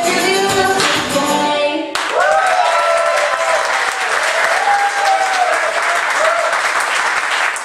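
A song with singing stops abruptly about two seconds in. A church congregation then applauds, with cheering voices over the clapping.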